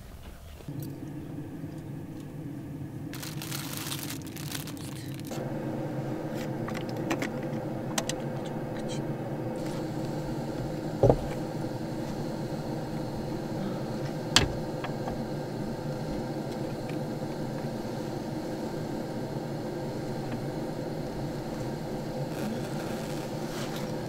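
Jeep Wrangler's engine idling with a steady hum, heard from inside the cabin. A burst of rustling comes a few seconds in, and two sharp knocks come around the middle.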